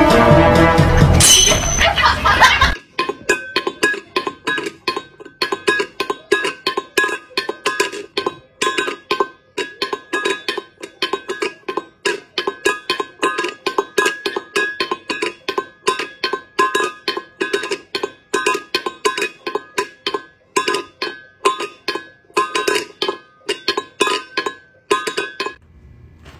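A metal pet bowl clattering and rocking on a hard floor as a cat paws at it: a long run of quick metallic clinks, several a second and uneven in loudness, each ringing at the same pitches. For about the first three seconds a louder pitched sound comes before it.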